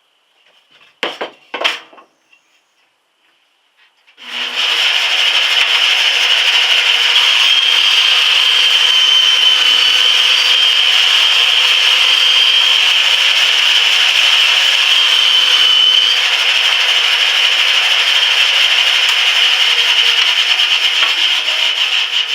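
An old Japanese bandsaw with a coarse 3–4 TPI blade cuts through wood in one long, steady, loud rasping pass. The cut starts abruptly about four seconds in, after two short knocks.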